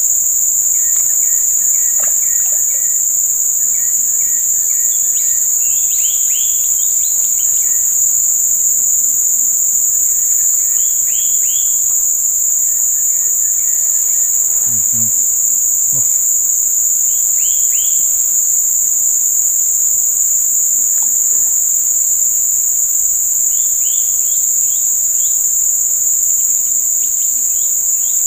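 A loud, steady, high-pitched drone of insects, with short chirping calls in little groups of three or four every several seconds.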